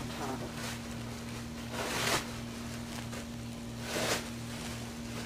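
Towels and bedding rustling in short swishes, about two seconds apart, as a hand moves them, over a steady low hum.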